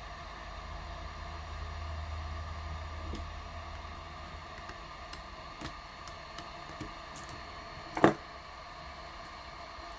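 Hot air rework station blowing steadily, with a few faint ticks and one sharp click about eight seconds in.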